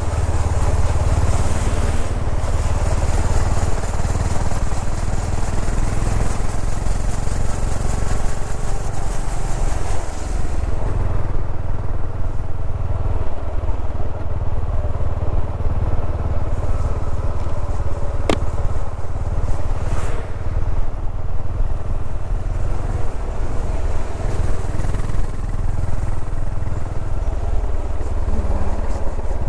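Yamaha SR400's single-cylinder four-stroke engine running as the motorcycle is ridden, heard from a camera mounted on the bike, with wind hiss that drops away about ten seconds in. A single sharp click comes past the middle.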